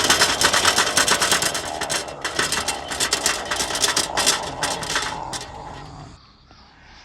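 Rapid, irregular clicking and crackling, dense at first, then thinning out and dying away about six seconds in.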